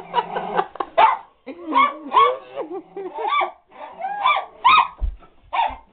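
Small dog yipping and whining in a string of short, high cries, one about every half second.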